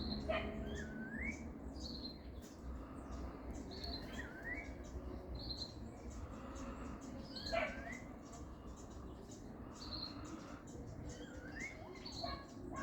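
Wild birds calling, repeating a short high note followed by a lower note that dips and then rises, about once every second and a half. Two louder, sharper calls stand out, one right at the start and one about seven and a half seconds in.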